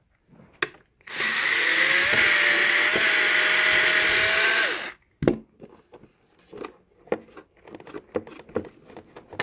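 Black & Decker cordless screwdriver running for about four seconds, backing a screw out of the radio's back panel, its motor pitch creeping up slightly as it spins. Light clicks and knocks follow as the screw and panel are handled.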